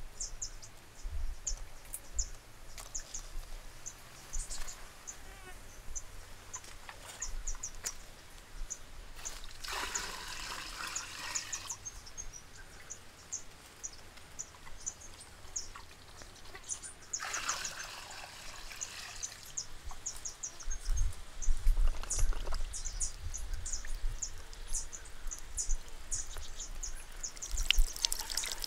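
Water poured from a clay pot splashes down twice, about ten seconds in and again around seventeen seconds, then near the end falls and trickles over a small bamboo water wheel. Short high chirps go on throughout, with a few low thumps a little after twenty seconds.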